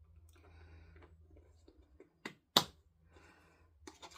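A motorcycle seat's fixing clip being pushed home. A small click is followed a moment later by one sharp snap, a little past halfway, as the clip seats.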